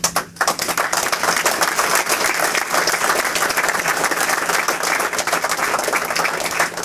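Audience applauding, a dense clatter of many hands clapping that sets in about half a second in and holds steady.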